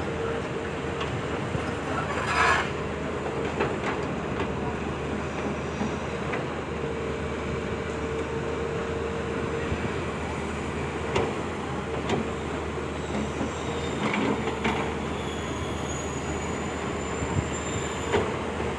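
Volvo hydraulic excavator working: its diesel engine runs steadily under a held whine, with a few knocks, the loudest about two and a half seconds in, and a faint high squeal near the end.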